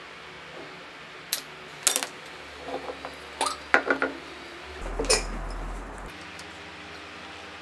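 Handling noise from small tools being picked up and set down on a tabletop: a scattering of sharp clicks and clatters, several in quick succession around the middle, with a brief low hum about five seconds in.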